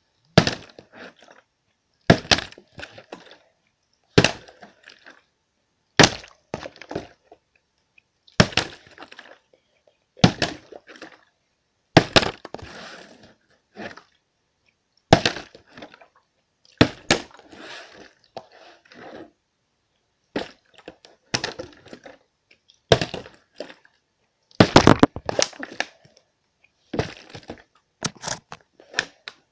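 A partly filled plastic water bottle being flipped and hitting the floor over and over, about every two seconds. Each sharp landing is followed by a brief clatter as it bounces and tips over.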